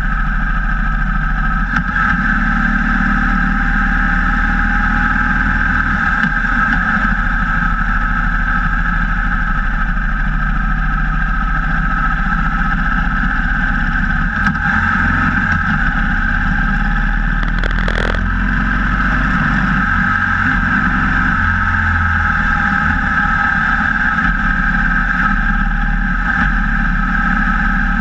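Cruiser motorcycle's engine running steadily at cruising speed along with wind rushing past the bike-mounted camera. A single brief click comes about two-thirds of the way through.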